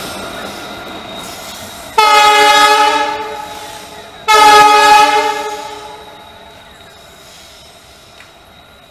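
EMD WDG4 diesel locomotive sounding its multi-tone horn in two loud blasts about two seconds apart, over the fading rumble of the passing train. After the second blast the train draws away and the sound dies down.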